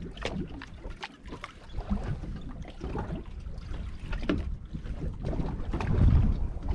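Sounds aboard a small fishing boat at sea: an uneven low rumble of wind on the microphone, with scattered short knocks.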